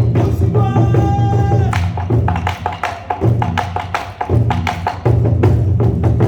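Korean buk drums beaten in fast, dense rhythm over a steady low backing, with a single held high note sounding for about a second early in the passage.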